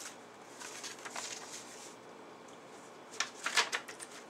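Soft rustling, then a quick run of light clicks and knocks about three seconds in, like small objects being handled on a workbench.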